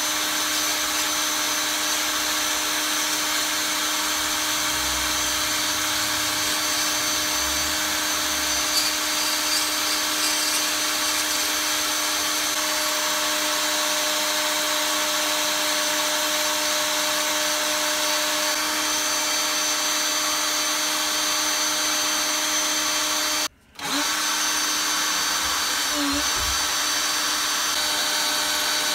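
Power drill clamped in a vice running at a steady speed, spinning a small electric-motor armature in its chuck while an abrasive pad is pressed against it to clean it. A constant whine at one speed, cutting out for a split second late on.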